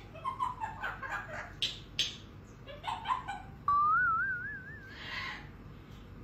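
African grey parrot vocalising: a run of short chattering syllables and clicks, then a long wavering whistle that climbs a little, followed by a brief breathy hiss.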